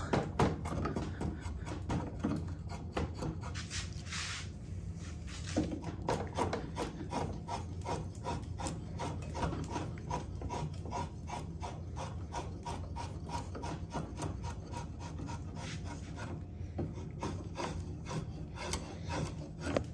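Kirschen 10-inch curved drawknife shaving wood, a steady run of short scraping strokes, a few a second, with some longer cuts between them.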